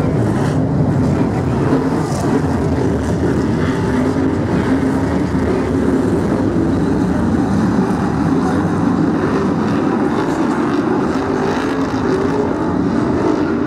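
BriSCA F1 stock cars' V8 engines running together as a pack, a loud continuous engine noise whose pitch wavers up and down as the cars come on and off the throttle.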